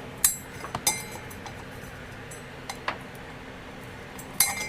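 Sharp metallic clinks with a short ring, a handful of them, the loudest about a quarter second in, just under a second in, and near the end: metal tools and tiller wheel parts knocking together as they are handled.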